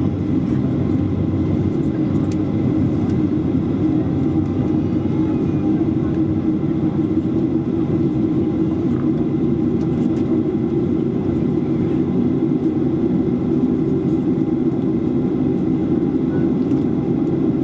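Steady drone of a Boeing 737-400's CFM56-3 turbofan engines running on the ground, heard inside the passenger cabin as a constant low rumble with a few faint steady whines above it.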